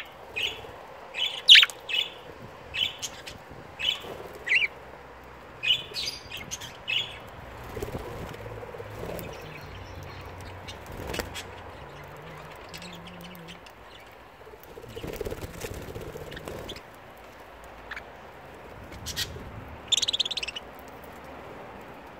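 Budgerigars chirping in short, sharp calls, several a second for the first seven seconds or so, then only now and then, with a brief flurry of chirps near the end.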